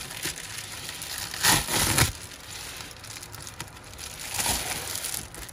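Plastic bubble mailer being torn open by hand, its poly film crinkling. Two louder rips come about a second and a half in and again just past four seconds.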